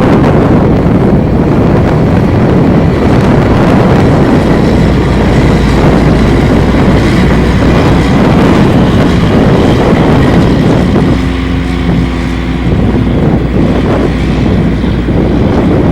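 Harvest machinery running with a steady low rumble under heavy wind noise on the microphone; a pitched engine tone rises out of it for a second or two about eleven seconds in.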